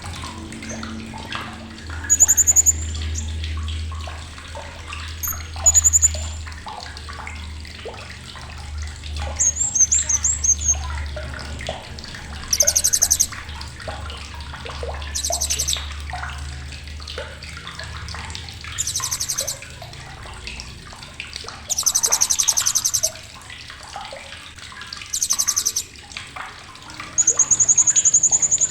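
Blue-crowned hanging parrot (srindit) giving short, very high-pitched shrill calls about every three seconds; the longer ones are fast, sharp chattering trills. Behind them are a steady background noise and a low hum.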